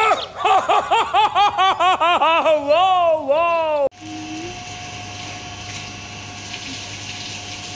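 Rapid, high-pitched laughter in quick repeated bursts, slowing into a few longer drawn-out ones. It cuts off abruptly about four seconds in, leaving a low steady hum with a faint steady tone.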